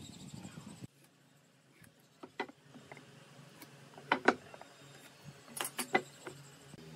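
Scattered light clicks and knocks of a steel square and a wooden board being handled on a wooden workbench, loudest around the middle and again near the end, over a faint low hum.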